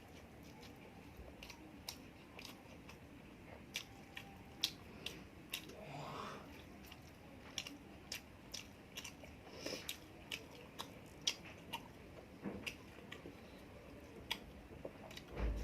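Close-miked chewing and mouth sounds of a person eating, with frequent irregular sharp wet clicks.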